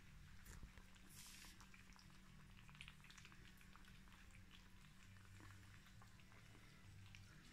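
Faint, scattered crunching and clicking of a litter of puppies eating dry kibble from metal bowls.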